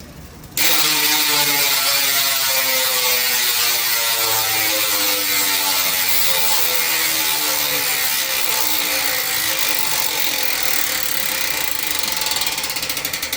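Speedone Sniper V3 rear hub's ratchet freewheeling while the spun wheel coasts: a loud, continuous clicking buzz that starts suddenly, falls steadily in pitch as the wheel slows, and breaks up into separate clicks near the end. The thin blow-molded aluminium frame makes the ratchet sound ring and echo.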